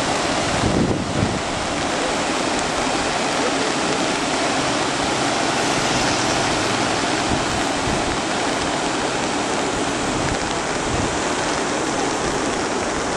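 Steady rush of a shallow river pouring over a low weir and rapids, with wind buffeting the microphone briefly about a second in.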